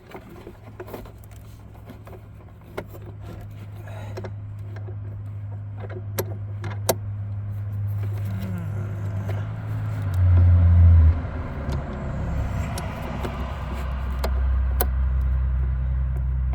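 Light metallic clicks and clinks of a spring and small fittings being worked into place by hand on a lawn tractor's engagement linkage, over a steady low rumble that grows louder, with a brief louder thump of rumble about two-thirds of the way through.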